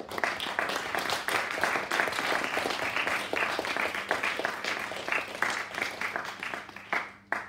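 A small audience clapping, starting suddenly and dying away over the last second or so, with a single late clap near the end.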